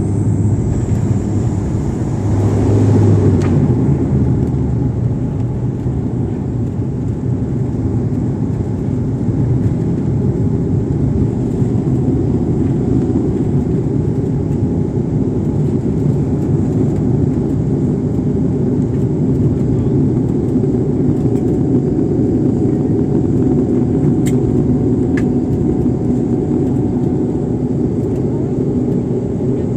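Airliner cabin noise from inside the passenger cabin during the landing: a steady, loud low rumble of engines and airflow. A higher hiss in the first few seconds dies away about three and a half seconds in.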